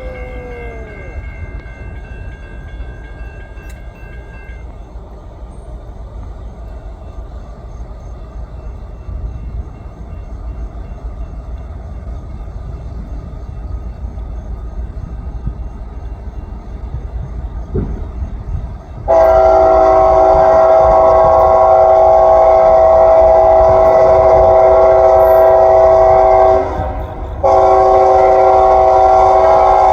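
Rumble of a passing freight train, then about two-thirds of the way in the lead locomotive's Nathan K5HL five-chime horn comes on very loud, holding one steady chord. It cuts out for a moment near the end and sounds again, stuck on.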